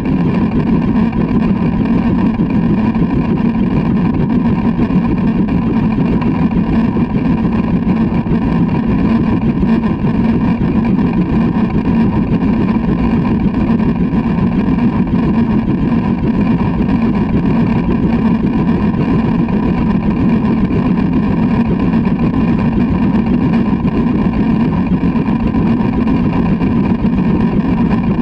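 LMS Black 5 steam locomotive running along the line, heard from its front buffer beam: a steady low rumble of the train on the rails that does not let up.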